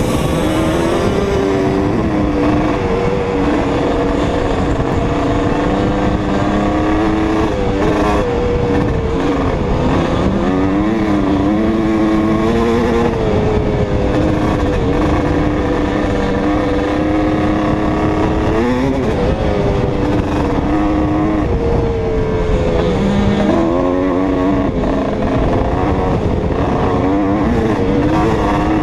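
Honda CR250R single-cylinder two-stroke engine running under load close to the camera. Its pitch rises and falls several times as the throttle is worked.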